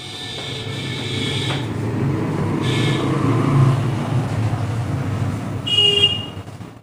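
A motor vehicle's engine rumbling past, swelling to a peak about halfway through and then easing off, with a brief high-pitched tone near the end.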